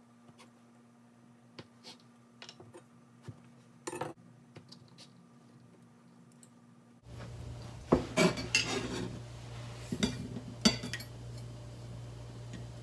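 Metal kitchen utensils and dishware handled on a counter: a few soft scattered taps at first, then, about seven seconds in, a busier run of sharp, ringing clinks and knocks over a steady hum.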